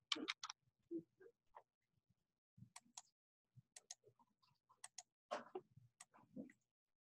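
Faint computer keyboard typing and mouse clicks: a few keystrokes, then scattered clicks a few seconds in and again near the end.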